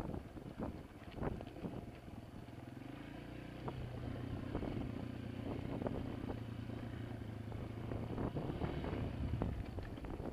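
Honda CRF230F trail bike's single-cylinder four-stroke engine running, picking up revs about three seconds in and then holding a steady pitch. Scattered knocks and clatters come through throughout.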